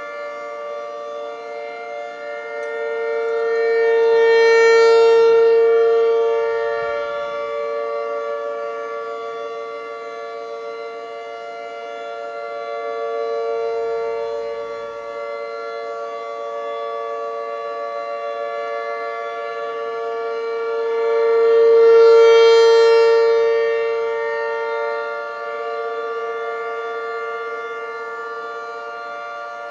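Outdoor warning sirens, a Federal Signal 2T22 and an ASC T-128, sounding a steady tone at a constant pitch. The sound swells louder and fades back about every eight to nine seconds as the rotating siren heads turn toward and away from the listener.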